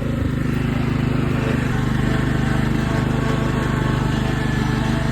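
Riding lawn mower's small engine running steadily, with a fast, even pulse and no change in speed.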